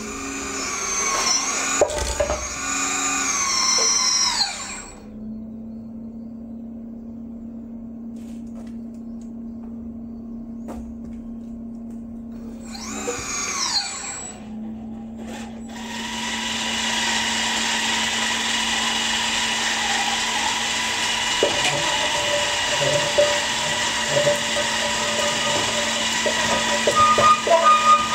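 Radio-controlled scale model of a Caterpillar 5110B excavator working its boom and bucket: a steady low hum underneath, with motor whines that rise and fall in pitch for the first few seconds and again briefly around the middle. From just past the middle a loud steady whine takes over, with light knocks near the end.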